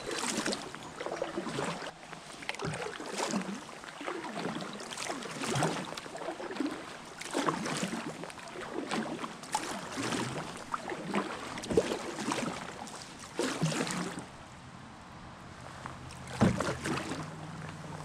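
Canoe paddle strokes in calm, shallow river water: the blade dips and pulls with a splash roughly every second or so, pausing briefly before a last stroke near the end.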